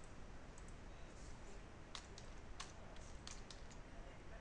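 A handful of separate, irregular computer keyboard clicks about halfway in, over a faint steady hiss.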